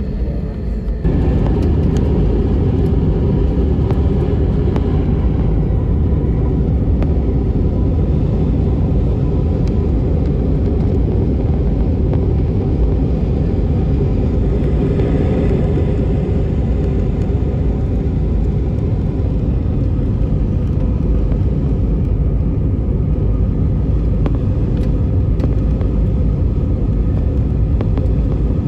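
Jet airliner engine and airflow noise heard from inside the cabin, a loud steady rumble. It steps up sharply about a second in, as the plane goes from the ground to its takeoff climb.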